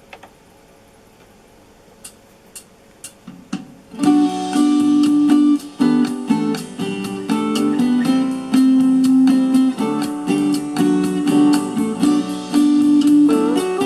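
Music from a CD played on an Aiwa CDS-A190 portable boombox and heard through its speakers. After a gap of about four seconds with a few faint clicks, the next Thai song starts with a guitar intro.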